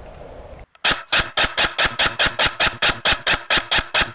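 G&G Predator M4 airsoft electric rifle firing a rapid, evenly spaced string of shots, about seven a second, starting about a second in after a brief dropout.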